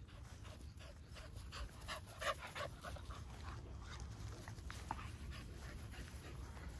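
Dogs heard faintly, with a quick run of short, sharp dog sounds about two seconds in and a few single ones later.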